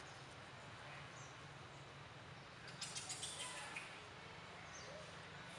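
Quiet outdoor background hiss with a few faint, short high chirps, and a quick run of sharp clicks or rustles about three seconds in.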